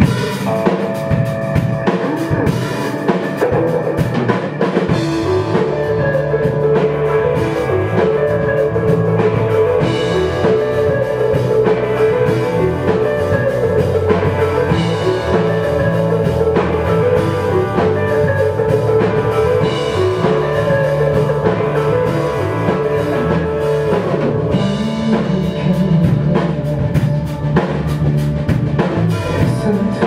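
Rock band playing live: a full drum kit with bass drum, snare and cymbals driving steadily under electric guitar.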